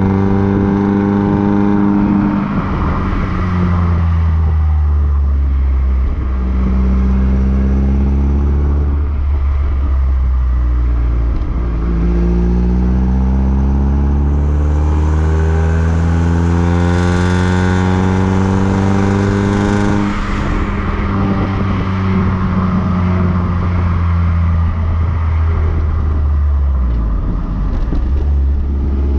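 Mazda MX-5 NB's four-cylinder engine heard at the tailpipe of its decat exhaust (catalytic converter removed) while driving. The note climbs under throttle several times and falls back as the throttle is lifted, with one long pull about halfway through.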